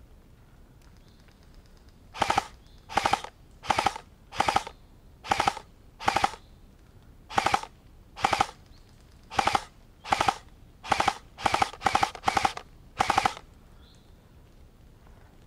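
Airsoft electric gun (AEG) firing about fifteen short full-auto bursts, each a fraction of a second of rapid shots, in an uneven rhythm that begins about two seconds in and stops a couple of seconds before the end.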